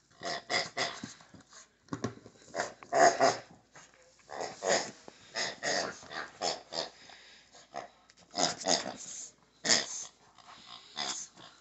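Shih Tzu growling in play in short, irregular bursts while mouthing and shaking a plush pig toy.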